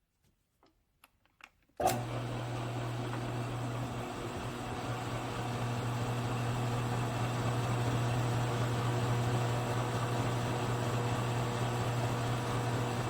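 A few faint ticks, then a machine tool's electric motor switches on with a click nearly two seconds in and runs with a steady hum.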